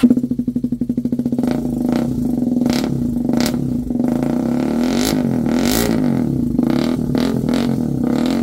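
Hero Karizma XMR 210's single-cylinder engine catching and running through a custom full-system bend-pipe dual exhaust with aftermarket silencers. It idles with a fast, lumpy pulsing beat for about a second and a half, then runs steadily while the throttle is blipped a few times.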